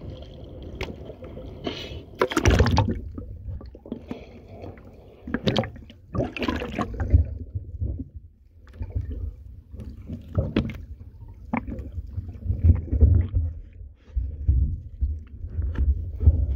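Seawater splashing over a phone's microphone, with several sharp splashes in the first few seconds. Then muffled underwater sloshing, gurgling and irregular low rumbling while the phone is held below the surface.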